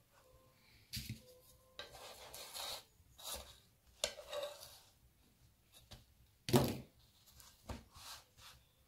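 Mini batbout flatbreads being handled and flipped on a non-stick griddle plate: irregular soft taps, rubs and short scrapes of dough and fingers against the plate, with one louder knock about six and a half seconds in.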